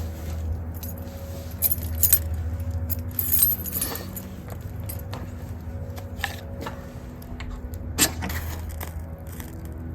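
Ferro rod scraped with a striker several times, giving short, sharp metallic rasps at irregular intervals to shower sparks onto punky wood shavings. A steady low hum runs underneath.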